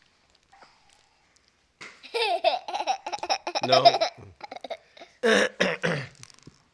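A baby laughing in rapid, high-pitched bursts, starting about two seconds in, with two shorter bursts of laughter near the end.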